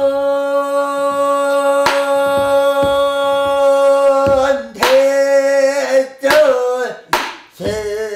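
A teenage boy with a changing voice sings pansori. He holds one long note for about four seconds, then moves into shorter phrases with a wavering pitch. A buk barrel drum is struck a few sharp times under the voice.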